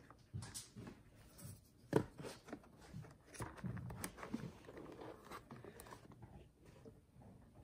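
Handling noise from a plastic power adapter, its cable and a remote being fitted into a padded travel case: faint irregular clicks, soft knocks and rustles, with one sharper knock about two seconds in.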